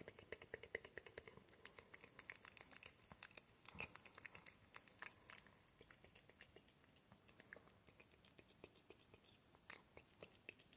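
Soft, close-miked ASMR mouth sounds: quick tongue clicks and lip smacks, made to sound wet. They come thick and fast for the first five seconds or so, then thin out to scattered clicks.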